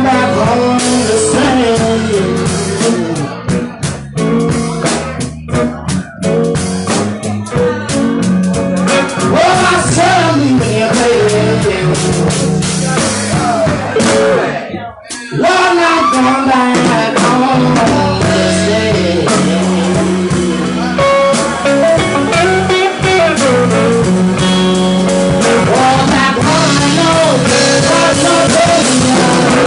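Live blues-rock band of electric guitars and drum kit playing. There are choppy stop-time hits in the first several seconds, and a short break about halfway through before the full band crashes back in.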